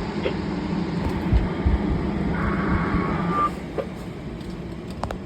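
A short burst of electronic signalling tones, about a second long, repeating every few seconds. Under it runs a steady low hum that stops about three and a half seconds in.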